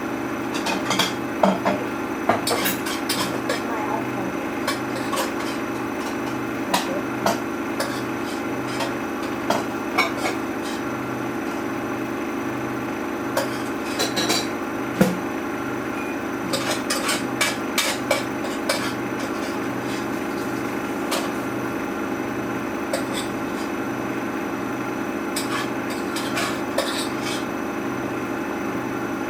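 Samsung washing machine running a wash with trainers in the drum: a steady hum with a slow regular pulse, and irregular knocks and clatters as the shoes tumble and thump against the drum, in clusters.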